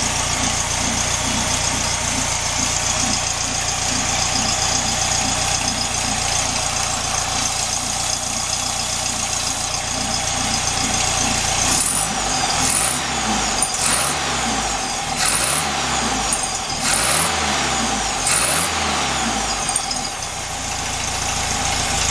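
Air-cooled flat-four engine of a 1967 VW Beetle idling steadily at about 850 rpm, freshly set with the carburettor's idle-speed and mixture screws. About halfway through the throttle is blipped by hand at the carburettor about five times, the revs rising and falling each time, and the engine then settles back to idle.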